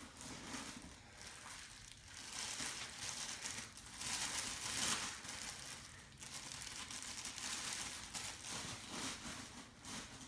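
Packing material crinkling and rustling as it is handled and pulled off, in irregular waves, loudest about four to five seconds in.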